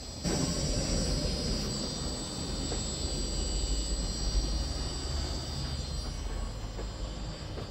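An old desktop PC switching on: a sudden start about a quarter second in, then cooling fans and drives running with a steady low hum and a high whine.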